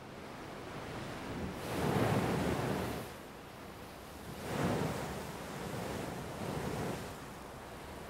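Ocean surf breaking against the base of a rocky sea cliff, in swells, with two louder surges of rushing water, about two seconds in and again near five seconds.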